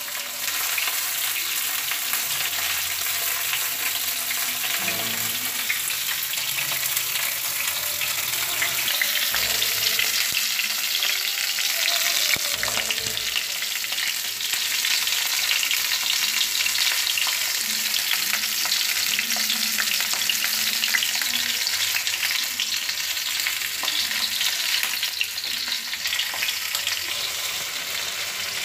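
Stuffed tomatoes sizzling in hot oil in a metal kadhai, a steady crackling fry, with a metal spatula stirring and turning them now and then.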